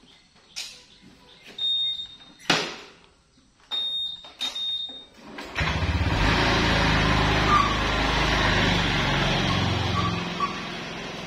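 Motor scooter started up: a few clicks and short high beeps, then the small engine catches about five seconds in and runs steadily, pulling away and growing fainter near the end.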